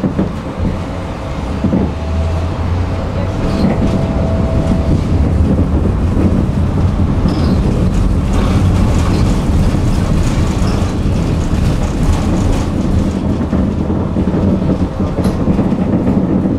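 Tram running along its tracks, heard from on board: a steady rumble of wheels on rail with scattered clicks, growing louder over the first few seconds, and a faint steady tone during the first five seconds.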